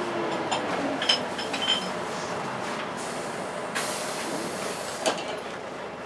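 Volvo B10BLE bus heard from inside the saloon on the move: the steady whooshing run of the engine and its cooling fan, the 'hoovering' sound, with clicks and rattles from the body. About four seconds in, a hiss of air starts suddenly and lasts a little over a second.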